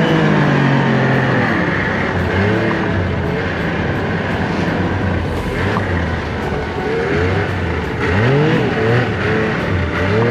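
Yamaha RS 1000 snowmobile engine driving through deep snow, its revs rising and falling repeatedly with a sharp rise about eight seconds in, over a steady hiss of snow thrown up by the track.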